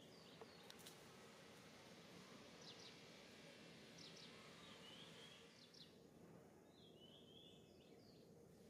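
Near silence: faint outdoor ambience with a couple of short, high chirping bird calls about halfway through and near the end.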